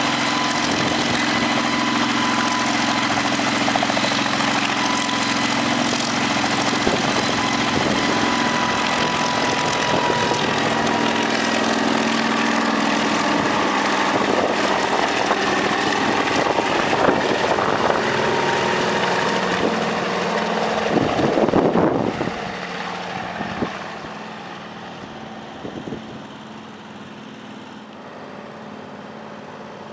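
Kamov Ka-26 helicopter with its twin radial piston engines and coaxial rotors running at takeoff power, with a steady whine over the rotor and engine noise as it lifts off and climbs away. The noise peaks about twenty-two seconds in, then drops sharply and stays fainter and more distant toward the end.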